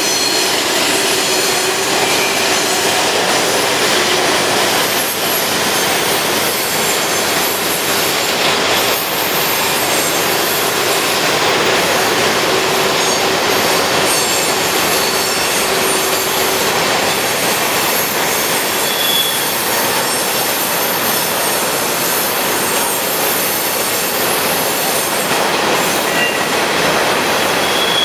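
Long freight train climbing a tight curve: steady rolling noise of the cars on the rails, with high-pitched wheel squeal from the curve. A set of mid-train diesel locomotives passes about halfway through, followed by tank cars.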